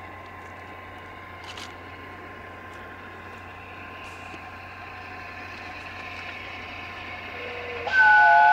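Faint steady noise of a distant approaching steam train, growing slowly louder; about eight seconds in, the steam locomotive's whistle starts a loud, held blast, a chord of several notes.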